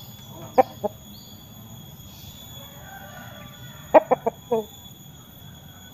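Bangkok game rooster clucking: two short clucks about half a second in, then a quick run of four clucks near the 4-second mark. A steady insect trill runs behind.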